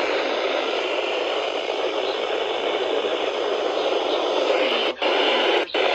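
Radio static: a steady hiss from a weather-radio receiver while the broadcast voice is lost in noise, cutting out briefly twice near the end.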